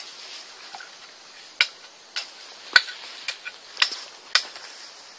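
Woven bamboo fish-trap fence being pushed into a shallow stream, with about six short, sharp clicks and knocks from the slats and the water, over a faint steady hiss.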